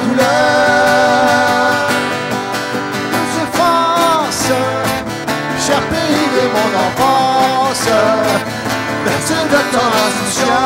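A singer holding long, gliding notes without words over an acoustic guitar accompaniment in a slow song.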